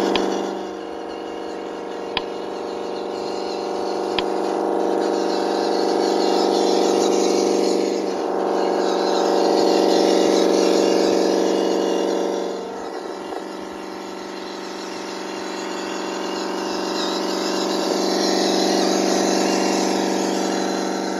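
MN D90 RC Land Rover's simulated engine sound from its on-board ESP32 sound controller and small speaker, a steady engine drone that swells and dips in pitch as the throttle changes. Two brief clicks come about two and four seconds in.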